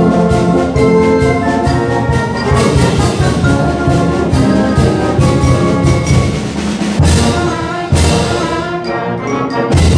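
Orchestral music led by brass, trombones and trumpets, with heavy percussion strikes about seven and eight seconds in and again at the end.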